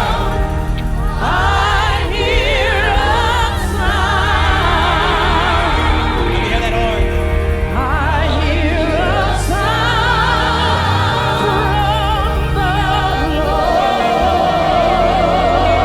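Gospel singing: a solo voice sings a slow, drawn-out line with heavy vibrato over sustained keyboard chords.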